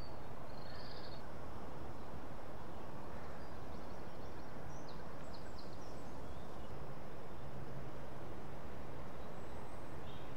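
Steady outdoor rushing noise with no clear single source, with a few faint, short bird chirps about half a second in and again around five seconds in.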